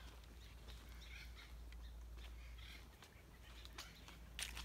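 Faint outdoor quiet with scattered bird calls, then a few sharp crackles toward the end, the loudest just before it ends, like footsteps on dry leaf litter.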